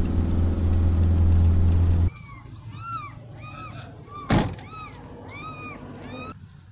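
A Renault van's engine and road noise heard steadily from inside the cab while driving, cut off abruptly about two seconds in. Then a small animal cries in a run of short, high, rise-and-fall calls, with one loud thump about halfway through.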